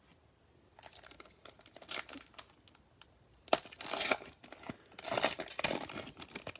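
Crinkling and tearing of a foil trading-card pack wrapper being ripped open and handled, in irregular bursts that are loudest about three and a half seconds in and again around five seconds in.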